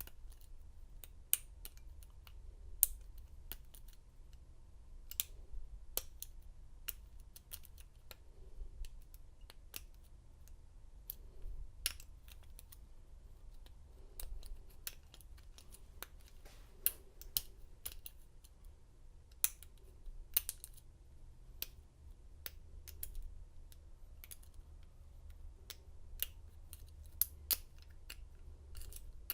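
Irregular small metal clicks and ticks of a lock pick and tension wrench working the pin stack of an American 1100 padlock, with a few sharper, louder clicks among them.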